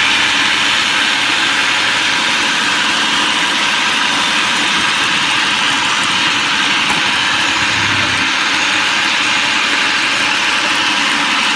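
Black & Decker 8-cup food processor running at a steady, super loud pitch.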